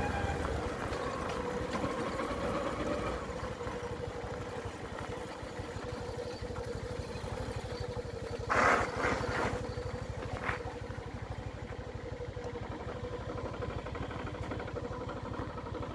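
A 150 cc motorcycle engine running steadily under way on a dirt road. About halfway through there is a brief louder rushing noise, the loudest moment.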